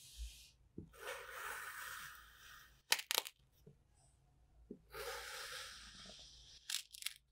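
A knife blade drawn through molded kinetic sand domes twice, each cut a long gritty, crumbly hiss, each followed by a few sharp clicks as the cut ends.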